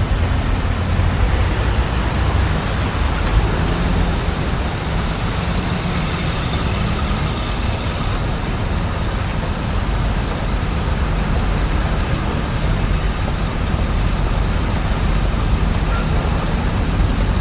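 Steady low rumble of road traffic, an even wash of city noise without distinct events.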